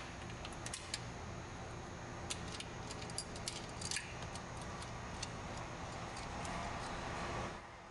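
Light metal clicks and taps, scattered and irregular, as small cap screws, nuts and washers are handled and threaded by hand onto a steel mounting bracket. A steady low hum sits underneath and drops away near the end.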